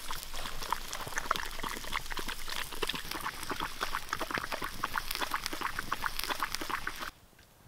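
Fish frying in a pan over a campfire: a dense, steady sizzling crackle that cuts off suddenly about seven seconds in.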